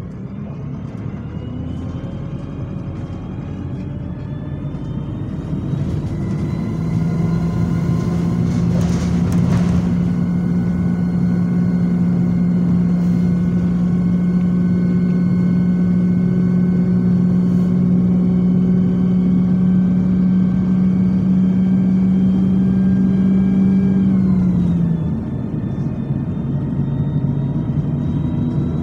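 Bus diesel engine and drivetrain heard from inside the saloon as the bus pulls away and accelerates, its pitch rising over the first several seconds. It then holds a steady loud drone. Near the end the pitch drops suddenly as the gearbox changes up.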